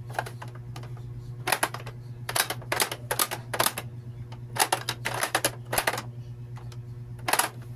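Plastic pop-up toy clicking and clacking as its buttons are pressed and its lids snap, in irregular short clusters, with one more near the end, over a steady low hum.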